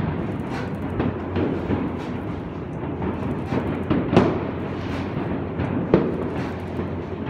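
Large bronze church bell, the Stephanus bell, swinging and ringing at close range in its belfry, its strokes running together into a loud, continuous clangour with the hardest stroke near the end. The sound is muffled by damping put over the recorder.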